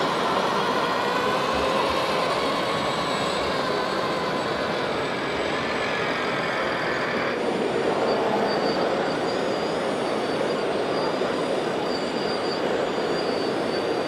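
Radio-controlled model trucks and a model hydraulic timber crane working amid steady exhibition-hall noise. About seven seconds in the sound changes, and a thin, wavering high whine from the model's hydraulic pump runs on top.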